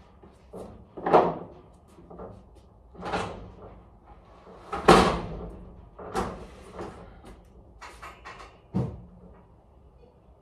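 Irregular knocks and bangs from freight and equipment being moved around inside a box truck's cargo area, the loudest about a second in and about five seconds in.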